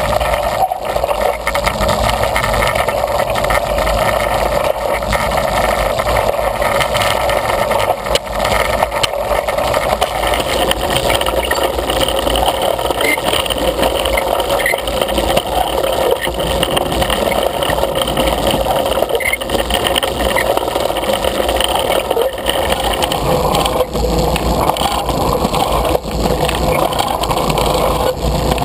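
Hand-propelled rail velocipede running along the track: the wheels rolling on the rails and the gear drive turning as the rider works the handles, heard close up from a camera mounted on the machine. A steady, unbroken running noise.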